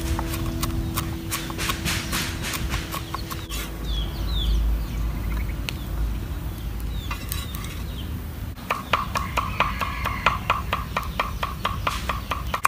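Cleaver chopping quickly on a wooden chopping board, about five sharp knocks a second. The chopping stops for a few seconds, leaving a low rumble and a few short bird chirps, then starts again about two thirds of the way in.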